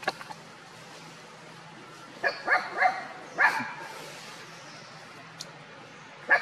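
Monkey calls: a quick run of four or five short, sharp cries about two seconds in, with a sharp click at the start and another near the end.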